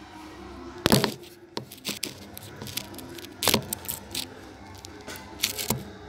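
Irregular clatter of things being handled: a string of sharp knocks and rattles, the loudest about a second in, with further knocks scattered through the rest.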